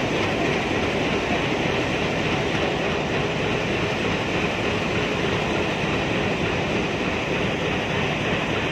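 Alco WDG-3A diesel locomotive's 16-cylinder engine idling at standstill, a loud, steady rumble.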